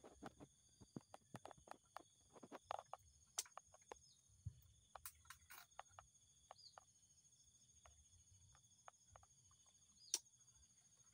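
Near silence with a faint steady high-pitched insect drone, scattered soft clicks, and a few short rising bird chirps.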